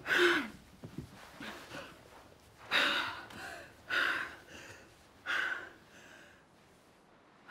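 A woman gasping and breathing heavily: four loud, ragged breaths a second or two apart, the first with a short falling voiced catch.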